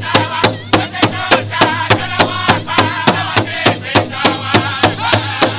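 Powwow drum group singing a fast fancy shawl contest song, the big drum struck in a steady even beat of about three strokes a second under high wavering voices.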